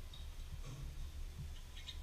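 Pencil point scratching and ticking on paper in short sketching strokes, a few quick ticks near the end, over a faint low steady hum.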